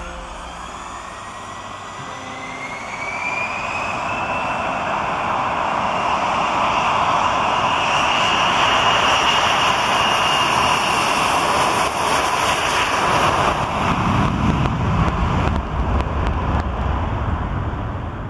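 Gulfstream G650ER's twin Rolls-Royce BR725 turbofans spooling up: a whine rises in pitch over the first few seconds and then holds. A loud rush of jet noise builds beneath it, and a low rumble grows near the end.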